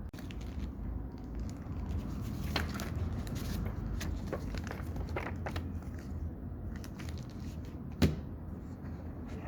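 Hands handling packaging and small plastic parts: scattered rustles and clicks, with one sharp click about eight seconds in, over a steady low rumble.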